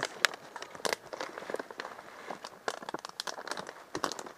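Rustling and crackling close to the microphone: a dense, irregular run of small clicks and crinkles, with no steady tone.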